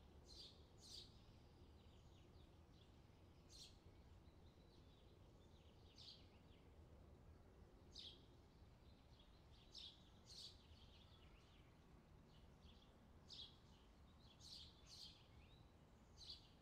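Quiet beach ambience: small birds chirping, a dozen or so short, sharp high calls at irregular intervals, over a faint low background hiss.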